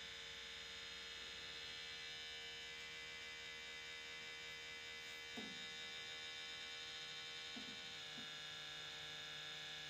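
Small electric pump of a manometer-style pressure switch tester running with a steady hum, pulling vacuum on a furnace pressure switch.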